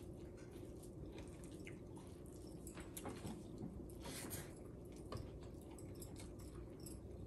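Faint chewing and soft wet squishing of a person eating sticky rice with her fingers, with a few scattered light clicks.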